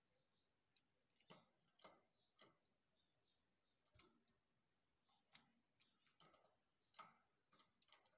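Faint, irregular clicks and ticks from a wire cage holding two canary fledglings, about a dozen sharp ticks spread unevenly with quiet between them.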